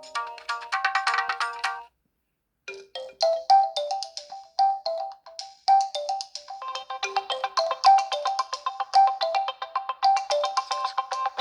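Realme C25s phone ringtones playing in turn. One melody ends about two seconds in, and after a brief silence the next begins: a quick, repeating melody of short, high notes.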